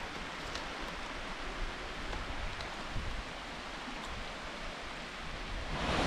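Steady rushing of a rocky woodland stream, flowing water with no let-up.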